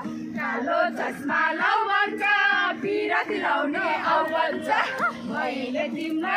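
A group of women singing and whooping together, several high voices overlapping, over a steady low hum.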